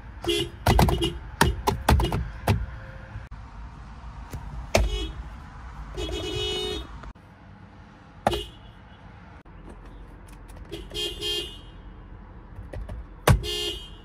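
Toyota RAV4 car horns sounding in a run of short honks and one longer one of about a second, as the steering-wheel horn pad is pressed.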